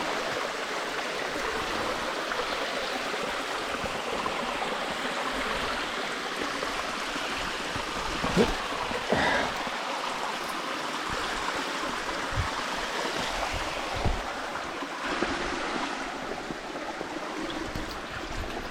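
Shallow rocky creek water running and trickling steadily, with a few brief knocks and rustles about halfway through.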